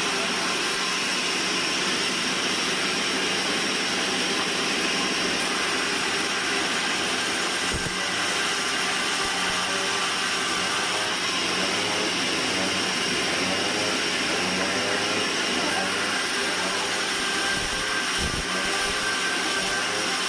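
Band sawmill machinery running, a steady mechanical noise that holds at an even level throughout.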